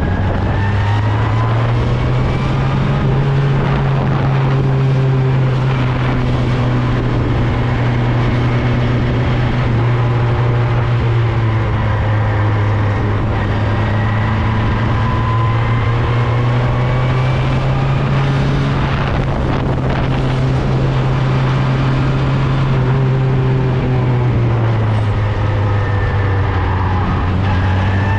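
Open-wheel single-seater race car's engine heard onboard at speed, its pitch climbing as it accelerates and dropping back again and again, as at gear changes and braking for corners.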